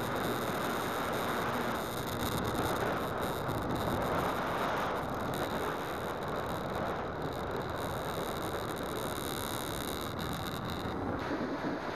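Onboard audio from an RC glider in flight: the nose-mounted DT750 brushless outrunner motor and propeller are running under a steady rush of wind over the airframe. The motor's high, steady whine cuts out near the end as the power comes off.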